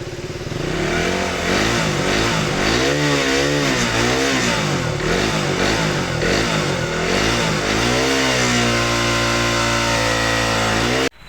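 Motorcycle engine, just got running on a flat battery, revved up and down over and over in quick blips. It then holds at a steady speed for the last few seconds and cuts off suddenly near the end.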